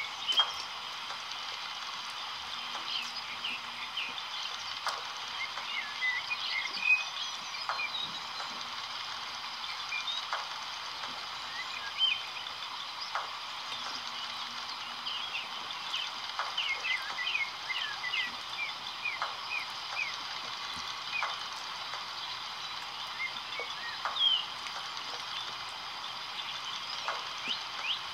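A steady background chorus of small animal calls: many short, high chirps over a constant high hum, with occasional sharp clicks.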